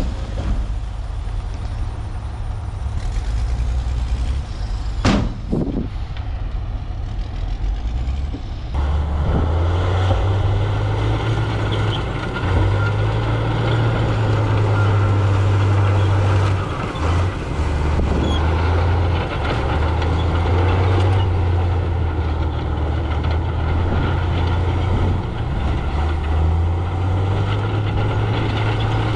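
Heavy diesel earthmoving machinery running with a deep engine rumble. About nine seconds in, the engine grows louder, as if working under load. A sharp brief noise comes about five seconds in.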